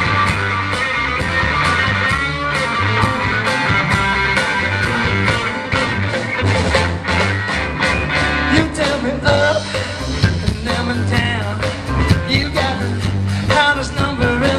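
Live rock band playing: electric guitars, bass and drums keeping a steady beat, with the guitar lines bending in pitch in the second half.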